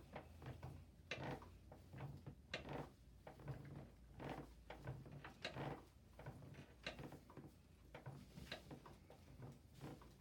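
Faint, repeated clicks and knocks, about one every second, from a chiropractic motion table's moving section as the low back is worked through its range.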